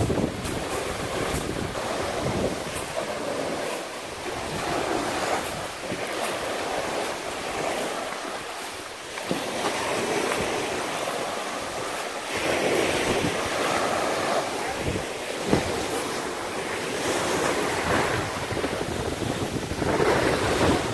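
Sea surf: small waves breaking on the beach, rising and falling every few seconds, with wind buffeting the microphone.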